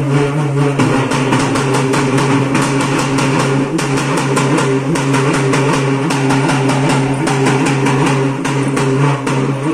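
Ritual music with a steady held drone and fast, even drum strokes over it.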